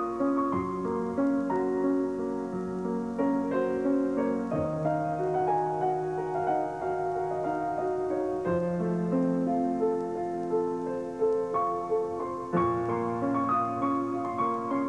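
Gentle piano music with a slow, repeating pattern of notes over held low notes that change about every four seconds.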